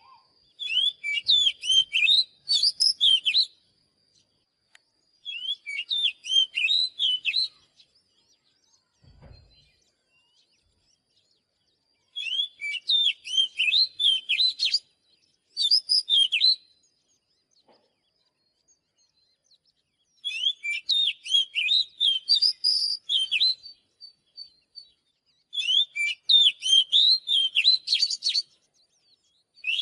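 Oriental magpie-robin singing: rapid, varied, high whistled phrases delivered in about six bursts of one to three seconds each, with short pauses between them.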